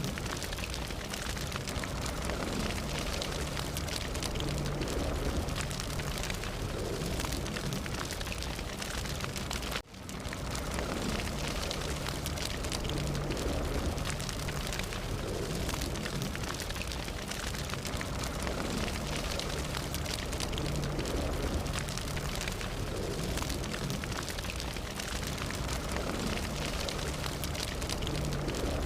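Fire burning: steady crackling and hissing over a low rumble, with many small pops. The sound dips out for an instant about ten seconds in, then carries on as before.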